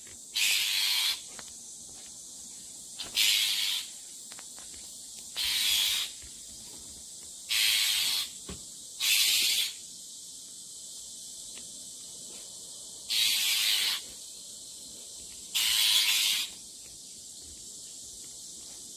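Bull-headed shrike at its nest in a tree, giving a series of harsh, hiss-like rasping calls: seven short calls at uneven intervals, each under a second. This is the unusual defensive call that a shrike makes over its brood of nestlings.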